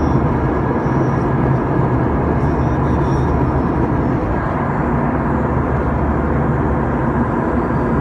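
A steady engine drone with a low hum underneath, unchanging throughout.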